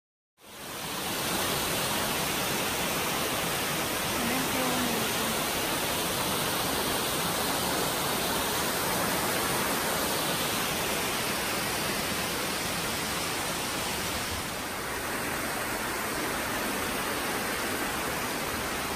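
Water of a mountain stream cascading over a series of rock steps: a steady, even rush that cuts in suddenly about half a second in.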